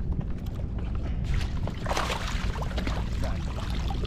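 Wind rumbling on the microphone on an open kayak, with a rush of hissing noise from about a second in.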